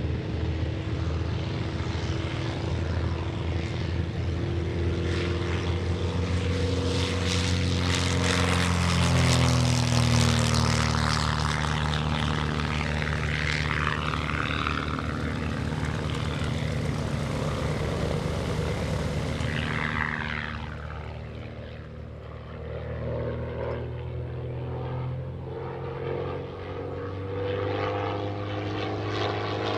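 Pitts S-1S aerobatic biplane's propeller engine at full power on its takeoff, growing loud as it passes close about nine to eleven seconds in, with the pitch dropping as it goes by. It then grows fainter and shifts in pitch as the plane climbs away.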